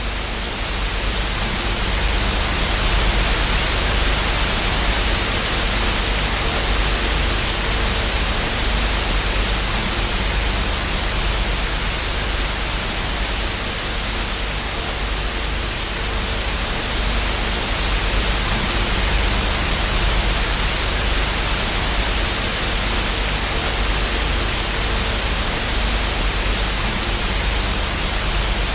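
Television static: the steady hiss of a TV with no signal, with a low hum beneath it.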